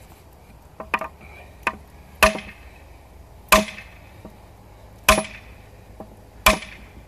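Hand hammer striking a second hammer that is held against a steel wagon tire as a bucking bar, driving the steel tire down onto the wooden wheel rim. There are a few light taps, then four heavy metal-on-metal blows about a second and a half apart, each ringing briefly.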